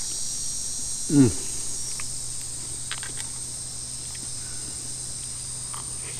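Steady, high-pitched insect chorus, with a few light clicks of a utensil against a cast iron skillet. About a second in, one short, loud call slides down in pitch.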